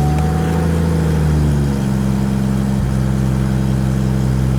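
2002 Chevrolet Trailblazer's 4.2-litre inline-six, just started, running at a fast idle. Its pitch sags slightly over the first couple of seconds, then it holds an even idle, its cylinder-3 misfire cured.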